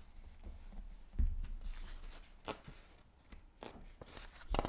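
Faint handling noise from a picture book: a few soft rustles and taps, then a page of the book being turned near the end.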